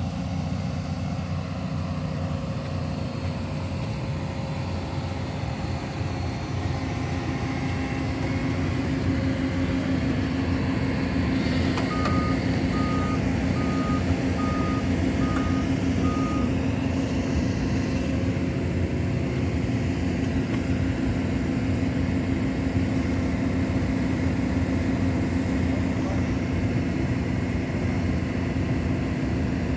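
Excavator's diesel engine running steadily, its note rising a little about seven seconds in. About twelve seconds in, an alarm beeps about five times, roughly once a second.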